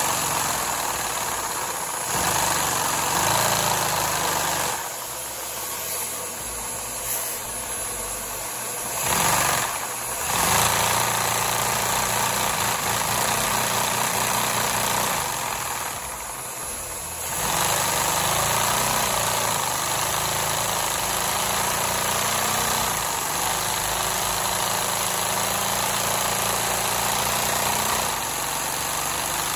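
LEGO VR4 vacuum engine running on suction from a vacuum cleaner: a steady rushing noise with an even mechanical hum from the pistons and crank. Its speed and loudness dip and rise several times, with a short drop about 16 seconds in and another near the end.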